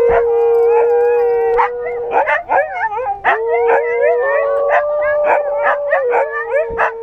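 Siberian huskies howling and yipping: one long, held howl that steps up in pitch about four seconds in and drops back near the end, with many short yips and whines over it.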